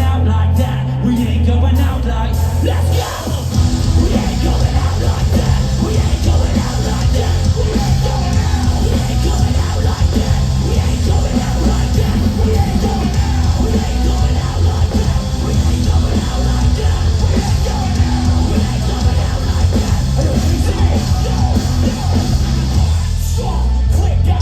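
Live heavy rock band playing loud, with shouted vocals; the music grows denser about three seconds in.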